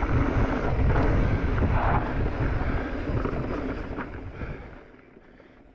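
Wind buffeting the microphone of a camera riding on a mountain bike descending a dirt trail, a dense rumble with a few small knocks from the ride. It fades away steadily over the last three seconds.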